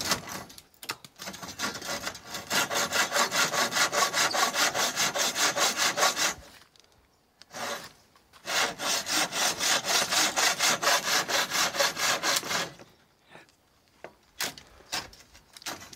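Hand saw cutting through old wooden roof boards in quick, even back-and-forth strokes, in two runs with a pause of about two seconds between them. A few light knocks follow near the end.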